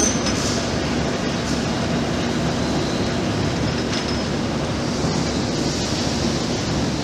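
Hypro vertical boring and turning mill running with its large worktable rotating: a steady mechanical rumble with a low hum and a few faint ticks.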